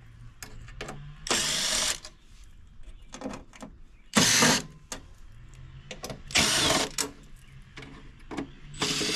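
A cordless driver backing out Phillips screws from the mower's metal panel, running in short bursts of about half a second, three times and again near the end. Small clicks of handling come in between.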